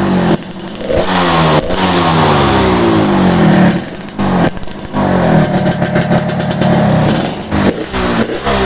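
Yamaha RX-King's two-stroke single-cylinder engine revved in repeated throttle blips through its gutted ('bobok') muffler, the pitch falling after each blip as the revs drop, with short breaks between. The muffler was reworked for a crisp, raspy 'garing ngorok' exhaust note.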